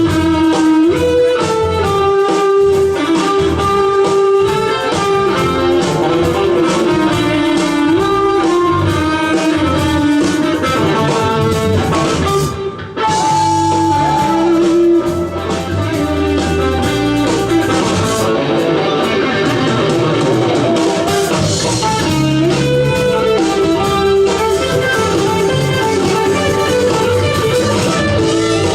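Live band playing an instrumental fusion piece: a sustained lead melody over electric guitar, bass and drum kit, with a momentary break near the middle.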